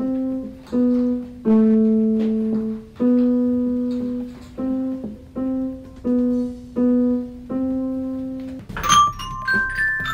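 Electronic keyboard playing a slow melody one note at a time, a few notes held longer. Near the end it gives way to higher, ringing glockenspiel notes.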